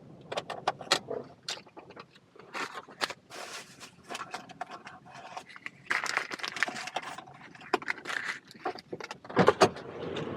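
Irregular clicks, knocks and light clattering, with short scraping or rustling noises about six seconds in and again about eight seconds in; the loudest knocks come near the end.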